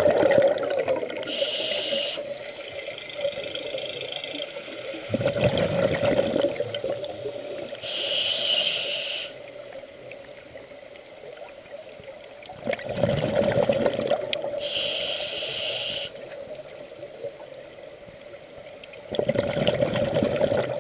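Scuba diver breathing through a regulator: exhaled bubbles rush and gurgle for about two seconds, then the demand valve hisses on the inhale, the cycle repeating about every six and a half seconds. Four exhalations and three inhalations are heard.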